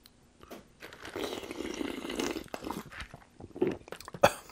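A person drinking iced soda from a glass held to the mouth: close-up slurping and gulping sounds with a few small clicks of ice, and one sharp click near the end.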